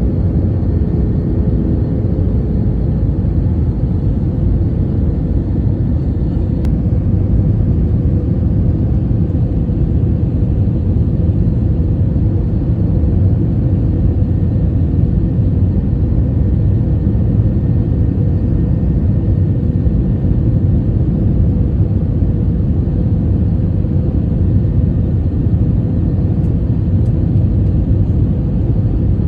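Steady airliner cabin noise on approach: a deep, even rumble of engines and airflow with a faint steady hum over it.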